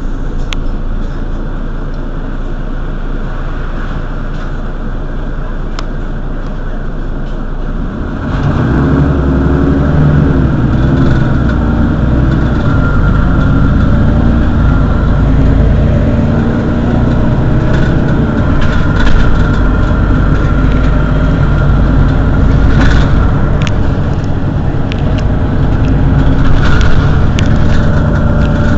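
Mercedes-Benz Citaro city bus's rear-mounted engine idling as the bus stands still. About eight seconds in the engine grows louder and fuller and stays there.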